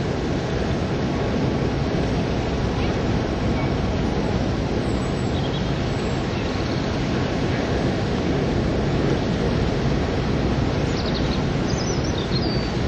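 Steady rumble of Class 73 electro-diesel locomotive 73101 running on its diesel engine as it draws slowly forward, towing steam locomotives.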